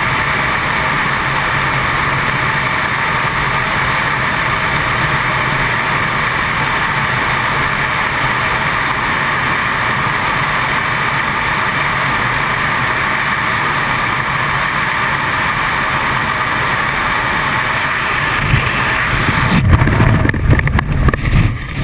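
Freefall wind rushing steadily over a microphone. Near the end it breaks into irregular, louder low buffeting and flapping as the parachute deploys and opens.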